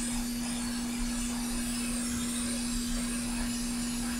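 Hot air rework station blowing on a circuit board to melt the solder on a connector: a steady rush of air with a constant hum underneath.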